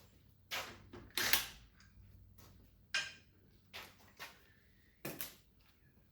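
A series of about seven irregular sharp knocks and clicks, the loudest about a second in.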